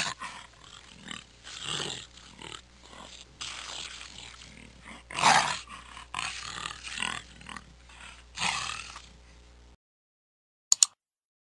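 Lion cubs growling at each other in irregular bursts as they play-fight, the loudest burst about five seconds in. The sound cuts off near the end, and two quick clicks follow.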